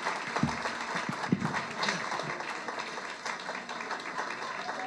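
Audience applauding, with a few voices calling out in the crowd.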